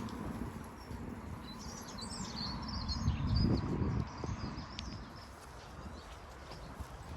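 Small songbirds chirping and twittering in a quick scattered run, with a low rumble of wind on the microphone that swells about three seconds in.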